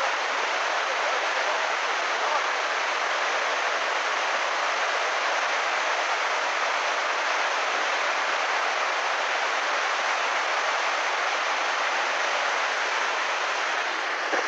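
Muddy flash-flood water rushing steadily as it scours away a road embankment.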